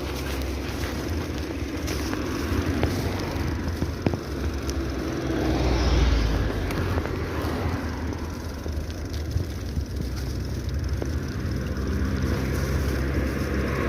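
Wind rumbling on the microphone while riding a bicycle, with steady road noise that swells and eases.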